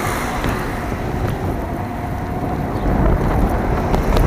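Wind buffeting the microphone of a moving e-bike, with steady rolling noise underneath and a faint steady whine that fades out about three seconds in; the wind grows slightly louder near the end.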